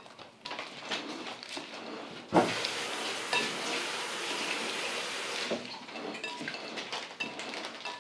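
Metal tongs tossing a Caesar salad with croutons in a glass bowl: rustling, crunching leaves and croutons, with clinks of the tongs against the glass. The tossing is densest from about two and a half to five and a half seconds in.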